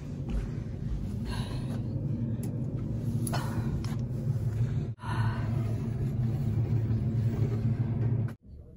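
A steady low rumble with a few faint knocks. It drops out for a moment about five seconds in and stops abruptly near the end.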